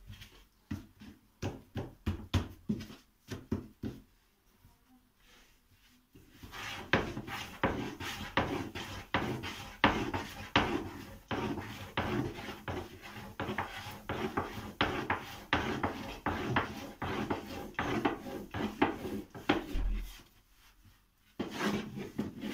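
Long thin wooden rolling pin (oklava) rolling börek dough back and forth on a round wooden board: a rapid, continuous run of short wooden knocks and rubbing that starts about six seconds in and stops near the end, after a few separate knocks in the first seconds.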